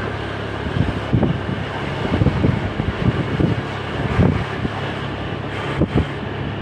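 A vehicle on the move: a steady low engine hum under wind buffeting the microphone in irregular gusts.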